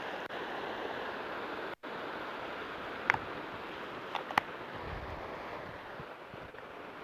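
Surf washing steadily over a rocky shoreline, with a few short clicks in the middle.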